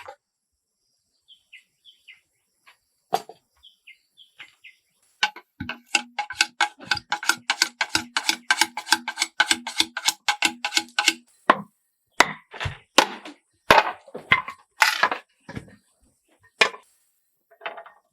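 Hand tool striking wood: a fast run of sharp knocks, about five a second for some six seconds, then several heavier, spaced blows.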